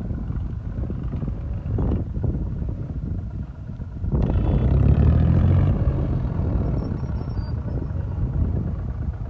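Sonalika tractor's diesel engine running as it tows a loaded trolley along a farm track, with a louder stretch about four seconds in lasting a second and a half.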